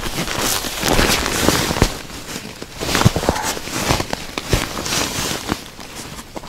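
Irregular crunching of boots and hands in snow and slush on pond ice, with a bag being rustled open near the end.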